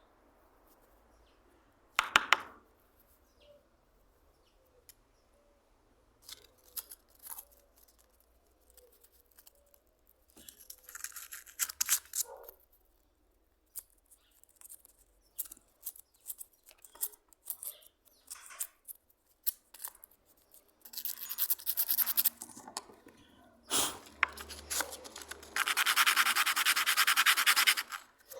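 Hand rubbing and sanding on a plane being restored: short scratchy strokes in bursts, longest near the end, with a sharp knock about two seconds in and scattered light clicks between.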